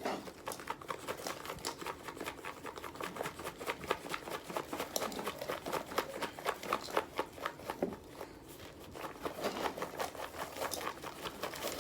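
Hard, dry baked cornstarch chunks clattering and crunching as they are handled in a container: a rapid run of small clicks and crackles, easing off briefly about eight seconds in.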